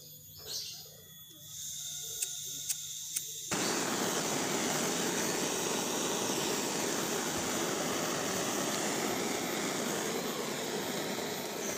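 Butane blowtorch on a cassette gas canister: gas starts hissing from the nozzle, three clicks from the lighter follow, then the torch catches about three and a half seconds in and burns with a loud, steady hiss.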